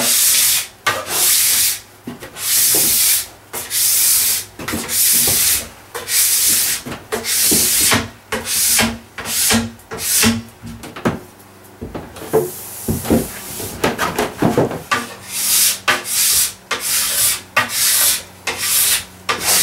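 Scraper drawn along a ski base tip to tail, scraping off cooled, hardened wax in short strokes about twice a second, with a brief pause a little past halfway.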